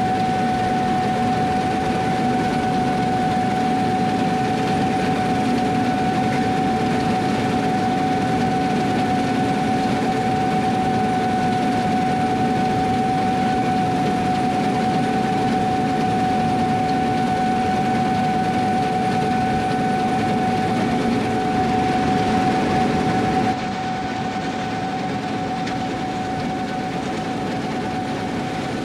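Gleaner combine running steadily at work in wheat, a constant high-pitched whine over the machinery's rumble. About 23 seconds in it drops a little in loudness and changes slightly.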